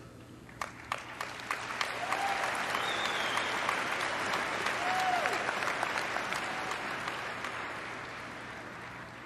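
Audience applause: a few scattered claps at first, swelling into full applause about two seconds in, then slowly fading.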